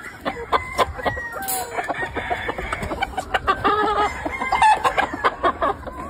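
Gamefowl chickens clucking and calling over one another in many short, quick calls, with a rooster crowing a little past the middle.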